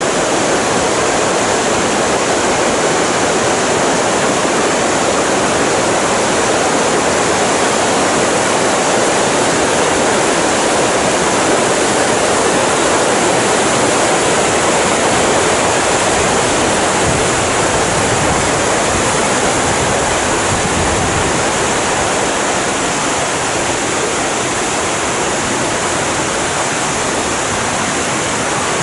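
Steady rushing roar of a river's whitewater rapid, the water pouring and churning over and between boulders.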